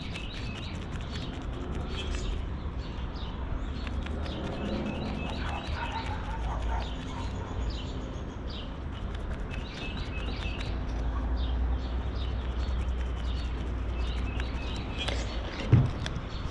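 Birds chirping repeatedly over a low steady rumble. Near the end, a single sharp thump as a plastic mixing cup is set down on a sanding block.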